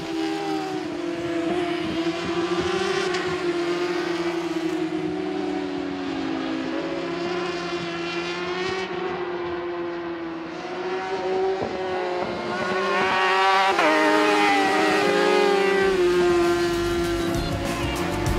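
600 cc supersport racing motorcycles at high revs through a hairpin. The engine pitch wavers and glides as the riders brake, shift and accelerate, and it grows louder and climbs about 13 seconds in.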